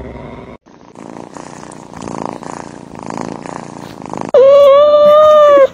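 A cat purring in a rapid, even rumble for about three seconds. Near the end a much louder held vocal note, steady in pitch, takes over for about a second and a half.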